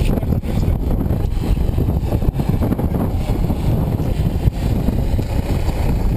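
Wind buffeting the microphone: a loud, fluttering low rumble with no clear tone.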